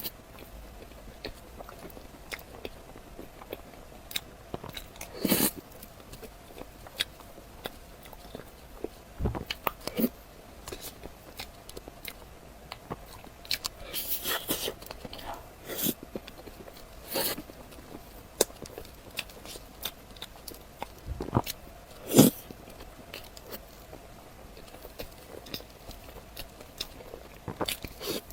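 Close-miked eating: irregular bites and crisp crunches with chewing between them, the loudest crunches about five, fourteen, seventeen and twenty-two seconds in.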